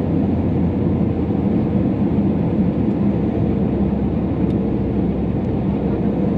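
Steady cabin noise of an Airbus A320neo descending on approach, heard from a window seat over the wing: an even rumble of engine and airflow with a faint steady hum.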